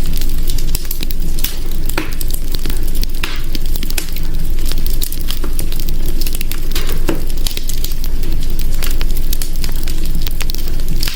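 Hearth fire crackling steadily: dense, irregular snaps and pops over a low, even rumble, with a few louder pops scattered through.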